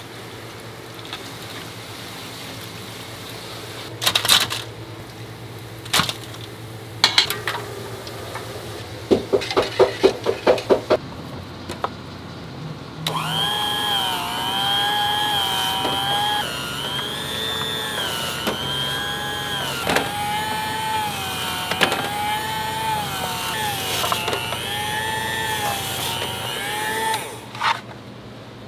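Electric food slicer running, a steady motor whine whose pitch wavers slightly as a peeled sweet potato is pushed through the rotating blade, with short clicks every couple of seconds. Before the slicer starts, a few sharp knocks and a quick rattle sound over a low hum.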